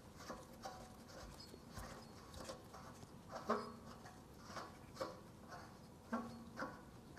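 Faint, irregular light clicks and taps of a propane adapter fitting being threaded onto an RV propane tank connection, a left-hand thread that tightens counterclockwise.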